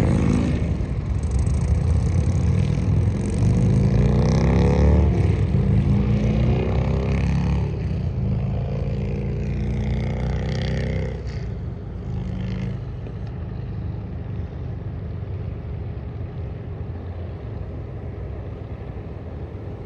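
Motorcycle engines running and revving as bikes move past, with the pitch climbing and shifting. About twelve seconds in the engine sound fades to a lower, steady rumble.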